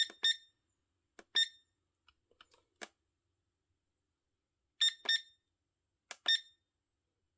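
The wireless charger alarm clock's buzzer gives short, high beeps as its setting buttons are pressed, several of them, some in quick pairs. Faint button clicks come in between.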